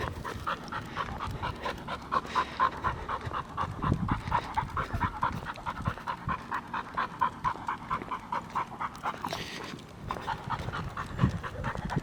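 Pit bull panting steadily while walking on the leash, about three to four breaths a second.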